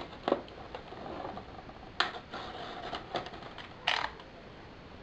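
Yellow box cutter slicing the seal sticker on a small cardboard processor box, with a run of sharp clicks and scrapes as the box is handled and turned over on the table. The loudest clicks come about two and four seconds in.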